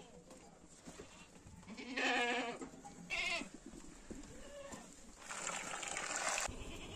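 Goats bleating: a long wavering bleat about two seconds in, a shorter one just after three seconds, and a fainter call a little later. A hiss lasting about a second and a half follows near the end.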